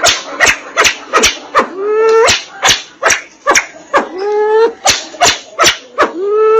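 Sempidan biru, a Bornean fireback pheasant, calling. Sharp clicking notes repeat a few times a second, mixed with short calls that rise in pitch and then hold, about one each second.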